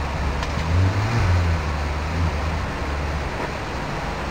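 Maserati Coupé's V8 running at low revs as the car creeps forward, a low steady rumble that swells briefly about a second in.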